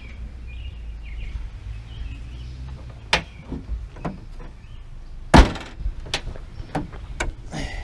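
A string of sharp knocks with one much louder thump about five and a half seconds in, from handling the pickup's hood while checking that the new battery clears its underside. A low rumble from wind or handling on the microphone runs underneath.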